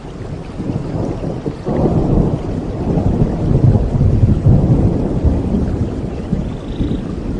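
Rain with a long rolling rumble of thunder that swells about two seconds in and eases near the end.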